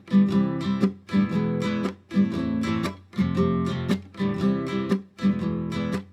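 Acoustic guitar music: a full chord strummed about once a second, each chord ringing and then briefly cut off just before the next strike.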